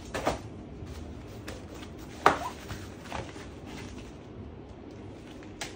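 Handling noise of a Helinox Table One Hard Top's folding top being unfolded: a few short knocks and clacks, the loudest about two seconds in.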